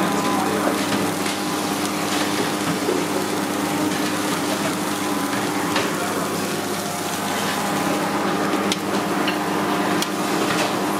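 Oil and a floured bone-in ribeye sizzling on a hot flat-top griddle, over a steady kitchen hum, with a few light clicks.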